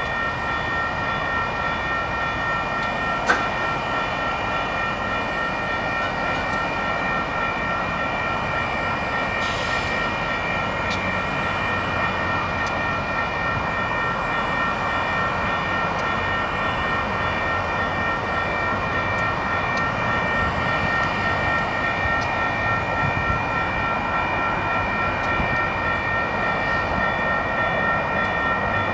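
Union Pacific diesel freight locomotives (SD70M, AC44CW, GP40-2) idling while stopped in a siding: a steady engine rumble with a constant high whine over it. A single sharp click about three seconds in.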